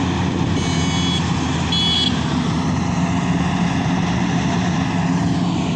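Maxxi Bhimo 102 combine harvester's engine running steadily, with two short electronic beeps about a second and two seconds in.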